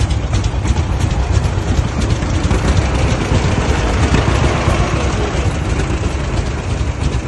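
A heavy engine running steadily nearby, a loud low rumble.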